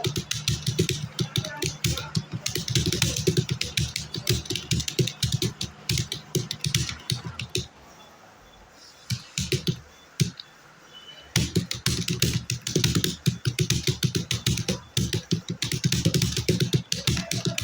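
Fast touch-typing on a computer keyboard: a rapid, uneven stream of key clicks, with a pause of about three seconds in the middle where only a few keys are struck.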